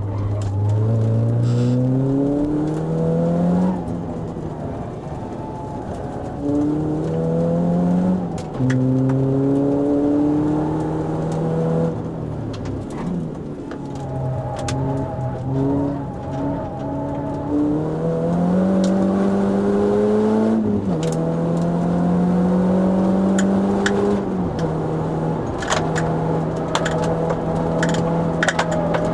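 Renault Clio RS four-cylinder engine heard from inside the cabin, driven hard on track: the pitch climbs through each gear and drops suddenly at each upshift. The revs fall and stay lower through a slower stretch in the middle, climb again, then hold fairly steady near the end, with occasional sharp clicks.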